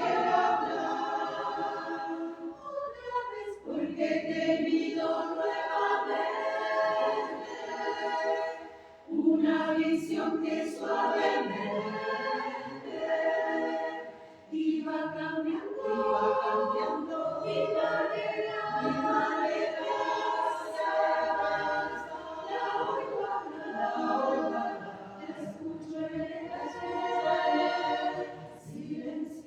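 A cappella choir singing in long, held phrases, with short breaks between phrases a few seconds apart.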